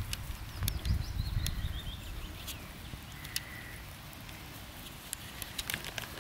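Young rabbits munching fresh-cut long grass: quick, irregular crisp crunching clicks of chewing and stems being pulled. There is a low rumble in the first second or so.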